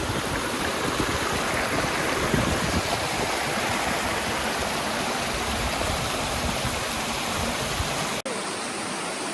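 Steady rush of a rocky stream's flowing water, with a brief break about eight seconds in.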